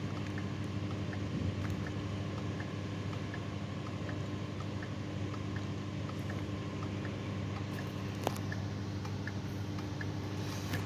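A steady low hum made of several fixed tones, with faint, evenly spaced small ticks over it and one sharp click about eight seconds in.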